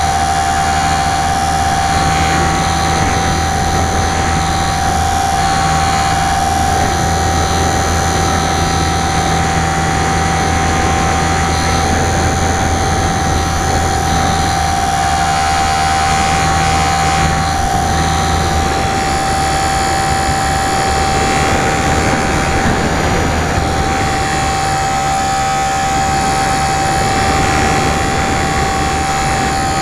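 Electric motor and propeller of a HobbyZone Super Cub LP radio-controlled plane, heard loud from its onboard camera: a steady whine that holds one pitch, over wind rush. A low hum underneath drops out about two-thirds of the way through.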